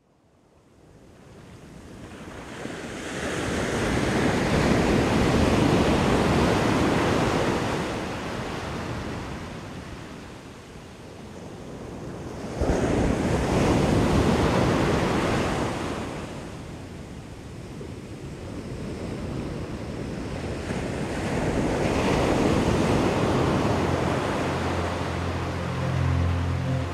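Ocean surf washing onto a sandy beach: a broad rush that swells and ebbs three times, each surge lasting several seconds.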